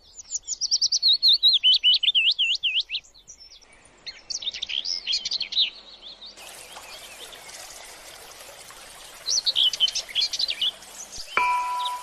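A songbird singing quick, repeated whistled phrases in several bursts, with a steady hiss coming in about halfway through. Chiming mallet-percussion music begins near the end.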